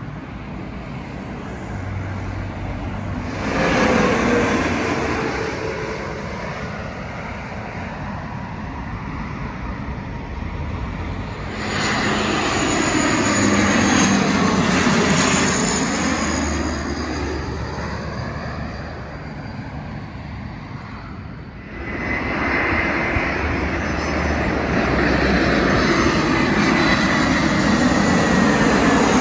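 Three airliners pass low overhead one after another on final approach, each joined to the next by an abrupt cut: a jet swelling to a peak and fading, with a falling whine as it goes over; then a Bombardier Dash 8-400 turboprop; then an Airbus A321 jet growing louder to the end.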